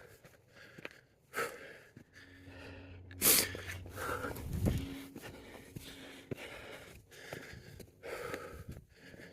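A person breathing hard in short, gasping breaths, the sharpest and loudest a little over three seconds in.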